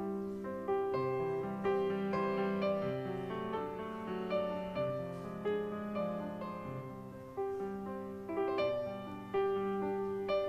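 Background music: gentle piano playing a melody of sustained notes over a steady pulse.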